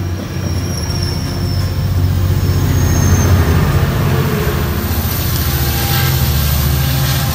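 A Metrolink passenger train rolling past close by: bilevel coaches with wheel-on-rail noise, then the EMD F59PH diesel locomotive pushing at the rear goes by, its engine drone louder from about two seconds in.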